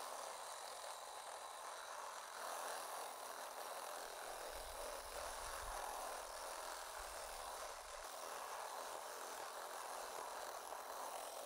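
Cordless drill running steadily as a long bit bores down into salt crust: a continuous whirring hiss, with a low rumble joining for a few seconds midway.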